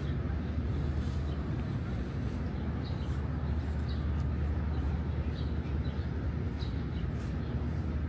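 Outdoor city ambience: a steady low rumble with short, faint high chirps every second or so.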